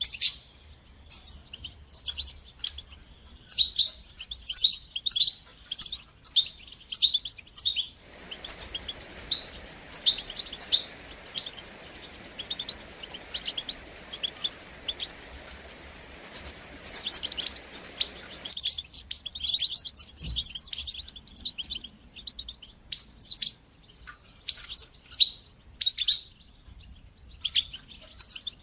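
European goldfinch singing: rapid, bright twittering chirps and trills in quick runs. For about ten seconds in the middle the song is quieter and a steady hiss lies under it.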